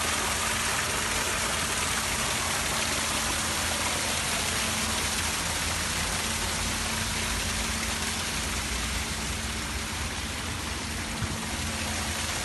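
Steady rush of water draining out of a rainwater storage tank, over a steady low hum.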